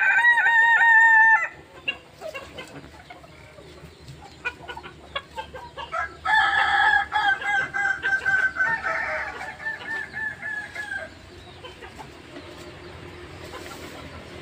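Kukuak balenggek roosters crowing. One crow with a wavering, rippling pitch ends about a second and a half in, short scattered calls follow, then about six seconds in a second long crow runs for about five seconds in several rippling steps.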